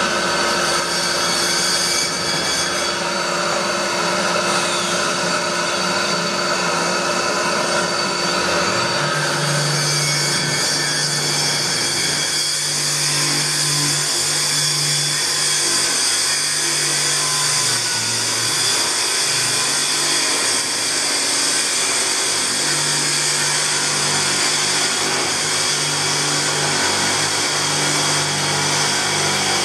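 Handheld concrete core drill running steadily, its motor giving a loud, constant whine and hum, with the tone shifting about eight seconds in.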